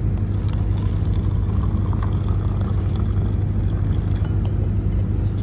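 Hot water running from the tap of a stainless-steel water urn into a paper cup, over a steady low machine hum that is the loudest sound throughout.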